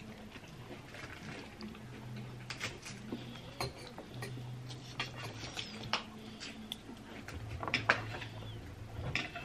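Metal knife and fork scraping and clinking against a ceramic pasta bowl: scattered light clicks, the sharpest a little before the end.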